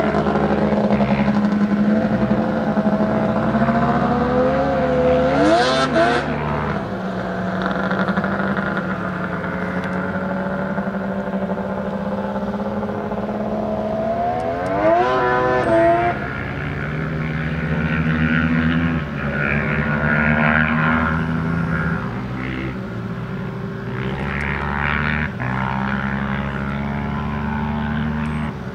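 Several small racing engines of the snowmobiles and bikes on the ice, running as a steady drone, with one engine revving up sharply about five seconds in and again about fifteen seconds in.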